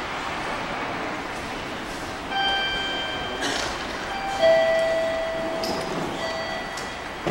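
Electronic station platform chime playing a short run of steady notes, a higher note then a lower one, over steady station noise.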